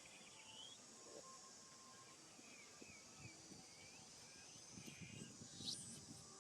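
Faint outdoor ambience: soft, high chirping and squeaking calls repeated over a steady high hiss, with one sharper rising squeak near the end.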